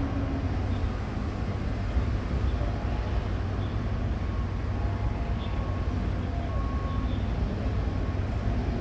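Steady low rumble of background noise on an open railway platform, with a few faint short tones now and then; the approaching electric commuter train is still far off and does not grow louder.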